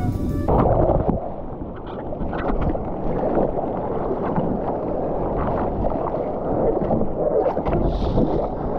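Surf water sloshing and splashing close around a camera in the waves, with wind buffeting the microphone. A short stretch of background music cuts off about half a second in.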